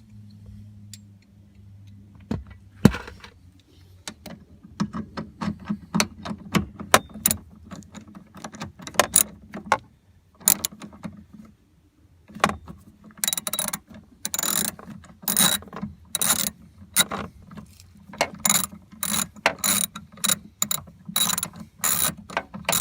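Hand socket ratchet with an extension backing out a 10 mm bolt. The pawl clicks in runs on each back-stroke, with sharp metal ticks throughout.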